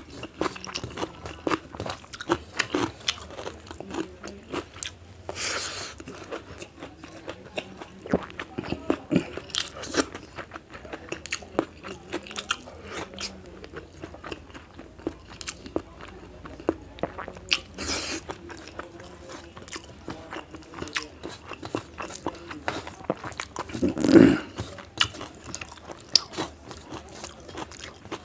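A person chewing and crunching food, with many short crisp clicks of biting and mouth sounds, and one louder sound a little after three-quarters of the way through.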